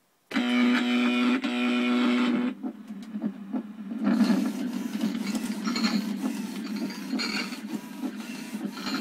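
Gemmy animated monster prop starting up: a loud buzzing tone from its speaker for about two seconds, then the whirring and clicking of its gear motors as its head, arms and eyes move.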